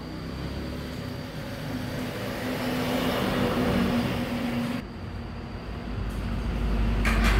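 A motor vehicle passing on the road, its engine hum and tyre noise swelling for several seconds and then breaking off abruptly. A deep low rumble builds near the end.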